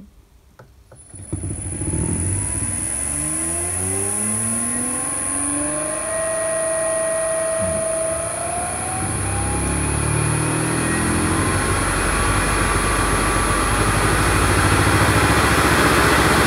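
Three-phase induction motor driven by a variable-frequency inverter, accelerating from standstill to full speed at 120 Hz: a whine rising in pitch, levelling off briefly midway and then climbing again. A steady high-pitched tone comes in as the drive starts, and a rush of noise grows louder toward the end as the motor nears top speed.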